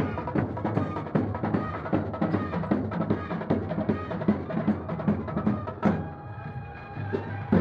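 Drumming by a festival percussion troupe: fast, dense drum strokes. About six seconds in the drumming eases off for a moment, leaving a few steady held tones, and comes back near the end.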